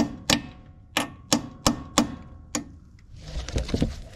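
A hammer tapping a socket set on the intake valve stem seal of a Honda mower engine: about seven sharp metal taps in quick spurts over the first two and a half seconds, driving the seal back into its seat after it had crept out. Some rustling follows near the end.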